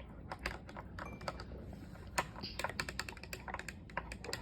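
Rapid, irregular clicking and tapping of slime being stirred and worked in a mixing bowl.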